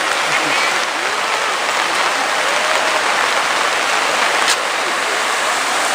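Heavy rain falling steadily, with one sharp click about four and a half seconds in.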